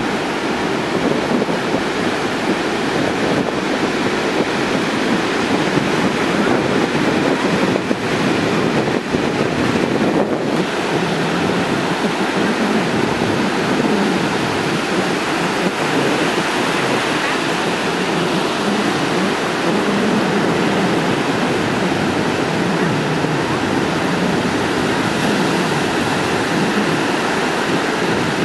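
Heavy surf from a hurricane swell breaking onto the beach: a steady, even rush of whitewater with no single crash standing out.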